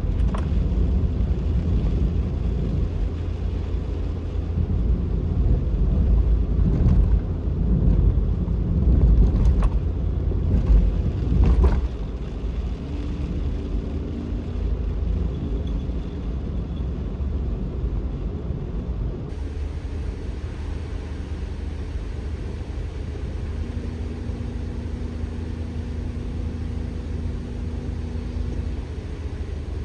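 Kei van driving: a steady low road and engine rumble inside the cabin, with a few sharp knocks in the first half.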